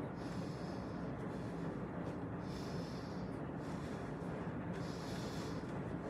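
Damp laundry being pulled from a front-loading washer into a plastic basket: the cloth rustles in short bursts about every two seconds over a steady low machine hum.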